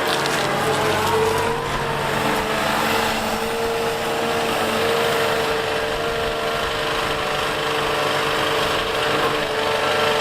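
Liebherr A 910 compact wheel excavator's diesel engine and hydraulics running steadily under working load, with a steady high whine over the engine.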